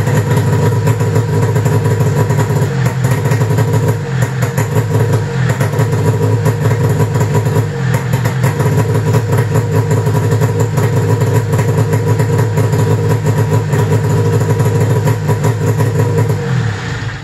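1995 Arctic Cat ZR 700 snowmobile's two-stroke twin engine idling steadily, shut off right at the end.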